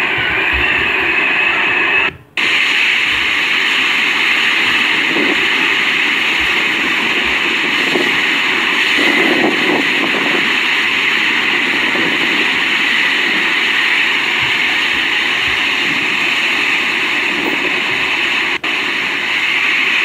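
Strong wind and driving rain of a storm, a steady heavy noise with a short break about two seconds in.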